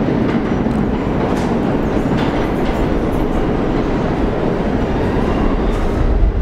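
Subway train approaching through the tunnel: a steady rumble of wheels on rail with a few clicks over the rail joints, the deep low rumble growing near the end as it draws closer.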